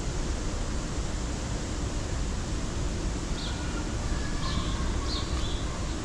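A steady rushing outdoor noise, with a few short, faint high chirps about halfway through.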